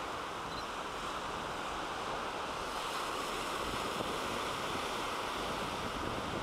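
Atlantic Ocean surf breaking and washing up on a sandy beach: a steady rush of waves.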